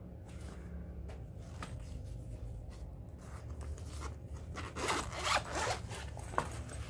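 Gold zipper on a Cordura travel pouch being unzipped around the pouch, a rasping run of zip teeth that is loudest about five seconds in. The pouch's fabric is handled and rustles before it.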